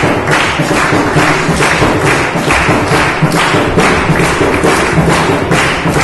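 A frame drum beaten in a steady rhythm, about three beats a second, with hands clapping along.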